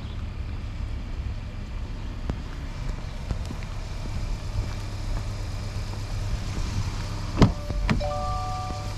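A steady low rumble, then two sharp clicks about half a second apart near the end, followed by light mallet-percussion music starting up.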